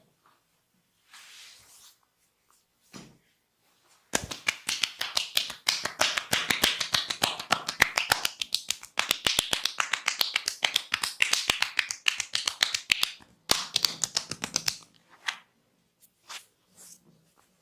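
A masseur's hands striking in quick succession in a percussive massage: a fast run of sharp slaps, about seven a second. It starts about four seconds in, runs for some ten seconds and breaks briefly near the end.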